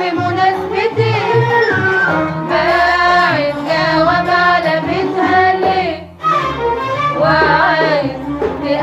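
Music from a classic Egyptian Arabic song recording: a flowing melodic line over accompaniment, with a brief dip about six seconds in.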